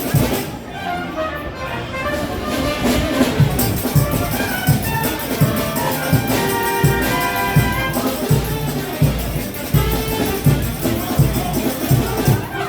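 Frevo orchestra playing: trumpets and trombones over a fast, steady drum beat.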